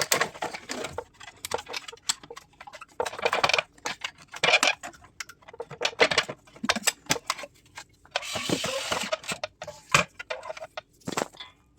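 Irregular clicks, knocks and rattles of a circuit board being unplugged from its wire connectors and lifted out, with a rustling scrape lasting about a second some eight seconds in.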